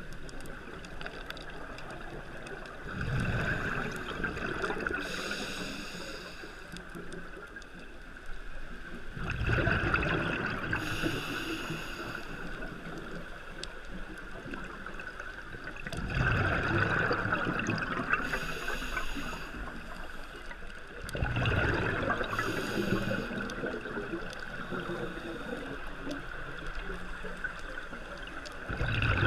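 Scuba diver breathing underwater through a regulator. A bubbling, gurgling rush of exhaled air comes about every six seconds, five times, each followed by a short hissing inhale.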